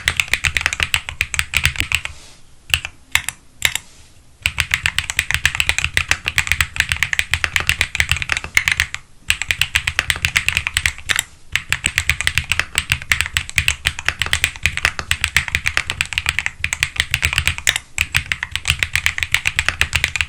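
Fast typing on a Graystudio Space 65 III mechanical keyboard with Gateron Pure Berry switches: a dense, steady run of keystrokes that slows to a few single strokes for about two seconds early on, then resumes with brief pauses.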